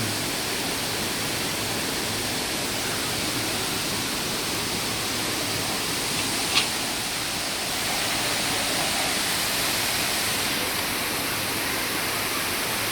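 Steady rushing noise of a waterfall, getting a little louder about eight seconds in. One short sharp click comes about six and a half seconds in.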